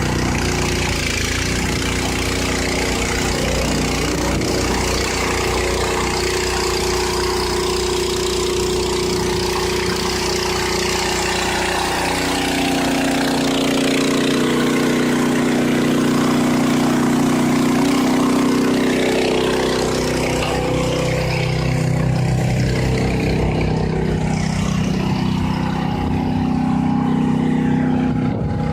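Farm machine's engine running, its pitch shifting up and down several times as the revs change, a little louder about halfway through.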